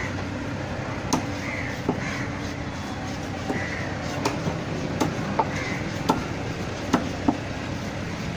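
A large fish-cutting knife knocks and scrapes sharply against a barramundi and the wooden chopping block, about nine irregular strikes. Crows caw several times in the background.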